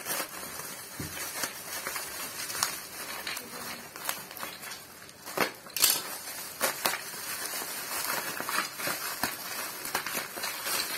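Black bubble wrap and plastic packing being handled and pulled open by hand, crinkling and crackling irregularly, with a couple of louder crackles a little past halfway.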